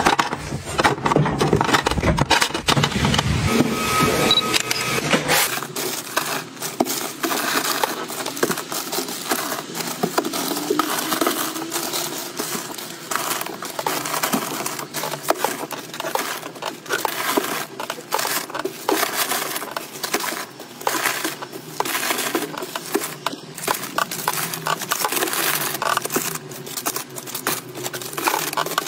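Plastic-wrapped packs of tissues and wipes crinkling and rustling as they are handled and stacked on a shelf, with many small taps and clicks. The first few seconds hold heavier handling knocks.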